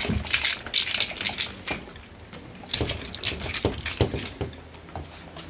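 Quick runs of scratching and rustling clicks as puppies scramble on bedding in a plastic kiddie pool while a hand handles them. The clicks are busiest in the first two seconds and again from about three to four and a half seconds in, then thin out.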